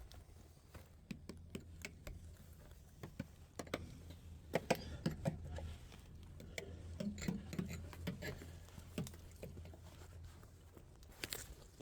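Light tapping on a hard object, an irregular run of quick taps, loudest and thickest around the middle, over a faint steady low hum.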